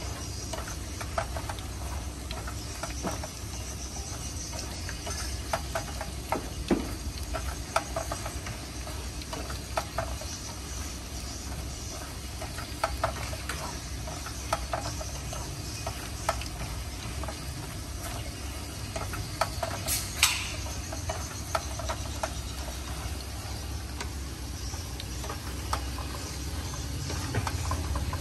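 Spatula scraping and clicking against a frying pan as meatballs and vegetables are stirred in sauce, with irregular taps throughout and one sharper scrape about twenty seconds in. Under it, a steady hiss of food cooking over a portable gas burner.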